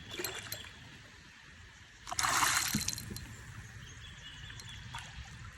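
Water splashing and trickling, with one louder splash lasting about a second, starting about two seconds in.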